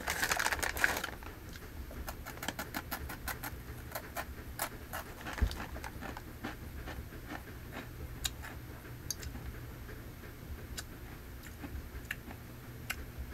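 Crunchy rolled corn tortilla chips (Takis) being bitten and chewed close to the microphone: a dense run of sharp, irregular crunches for the first few seconds, then sparser ones. The chip bag crinkles briefly at the start.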